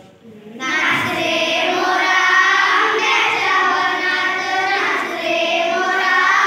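A class of young children singing a line of a Marathi song together in unison, echoing the teacher's line; the group starts about half a second in.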